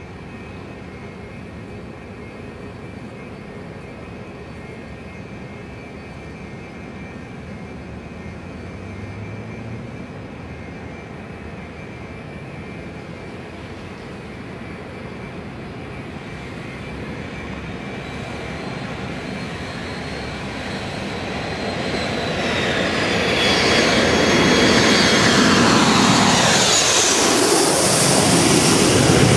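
Low-flying jet airliner with rear-mounted engines passing overhead: a steady jet hiss that grows over some ten seconds into a loud rushing noise, with a high whine that slides down in pitch as the plane goes by.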